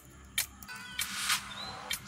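Eggshell being picked at and pried open by fingers: a sharp click, then a short crackle of shell about a second in, over faint background music.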